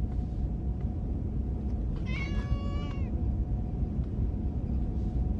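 A house cat meowing once, a single call about a second long, about two seconds in, over a steady low hum.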